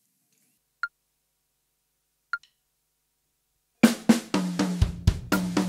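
Two metronome clicks a second and a half apart, counting in at 40 beats per minute. About two-thirds of the way in, an acoustic drum kit comes in with a linear pattern: hand strokes moving from snare down through the toms, each group followed by two single-pedal bass drum notes.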